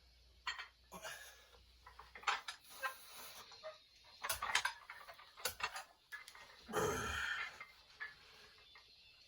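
Scattered metallic clicks and knocks of gym weights being handled, with a denser clatter about four and a half seconds in and a short grunt-like vocal sound about seven seconds in.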